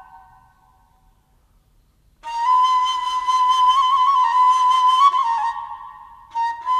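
Background music: a solo flute playing slow, long-held notes with slight wavers in pitch. One phrase fades out at the start, and after a brief hush a long note enters about two seconds in. It fades around six seconds, and a new phrase begins just before the end.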